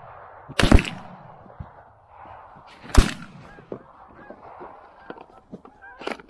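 Two loud shotgun blasts, about a second and three seconds in, over Canada geese honking; a fainter crack comes near the end, as the goose honking grows busier.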